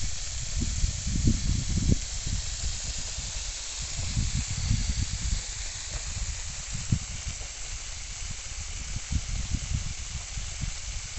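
Rain pipe (perforated irrigation hose) spraying fine jets of water, a steady high hiss, with an uneven low rumble underneath.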